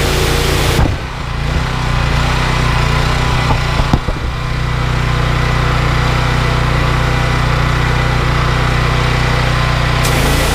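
Honda GX390 single-cylinder petrol engine running steadily, driving a belt-driven pressure washer pump. A hiss, most likely the water jet, cuts out about a second in and returns near the end, with a brief knock around the middle.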